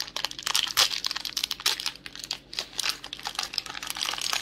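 Small plastic Mega Construx building pieces clicking and rattling against each other, mixed with the crinkling of a plastic parts bag as they are handled; a rapid, irregular string of light clicks.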